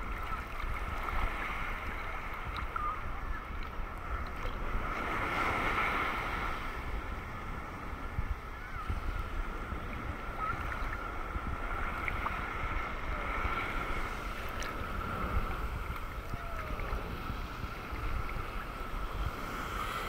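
Choppy sea water sloshing and lapping around a camera held at the waterline, with wind rumbling on the microphone.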